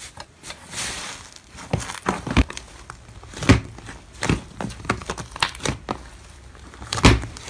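Thick slime being squeezed, pulled and stretched by hand, giving irregular crinkly crackles and sharp sticky pops, the loudest about halfway through and near the end.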